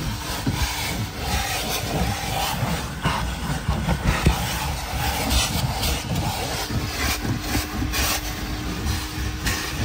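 Sand being scraped and brushed out of a car, in irregular short scraping strokes over a steady low rumble.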